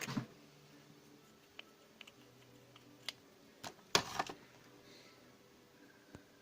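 Sharp clicks and knocks of small parts being handled while a small DC drill motor is put back together, with a cluster of knocks at the start and another around the middle and faint ticks between.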